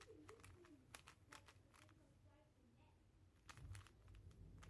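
Faint, scattered clicks of a plastic 3x3 cube's layers being turned while reverse corner cutting is tried, over near silence.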